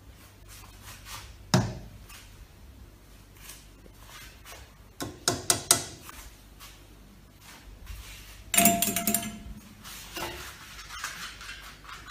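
Scattered knocks and clinks of hard objects: a single knock, a quick run of taps about five seconds in, and a louder clatter with a short ring a little before the end.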